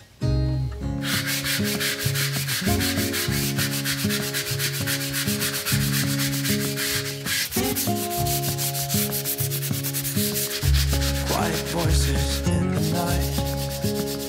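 Hand sanding of dried spackle patches on a drywall wall with a sanding sponge: repeated rubbing strokes with a dry, scratchy sound, stopping near the end.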